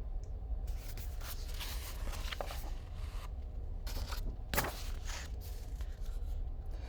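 Paper rustling from a picture book being handled, then a sharp tap about four and a half seconds in, over a steady low hum.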